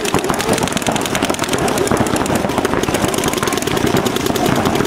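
Paintball markers firing in rapid, overlapping streams: a dense, unbroken rattle of shots.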